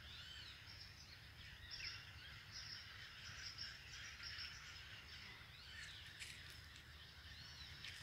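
Faint birdsong: several birds calling with short, repeated arching chirps, over a faint low rumble. A few soft clicks sound near the end.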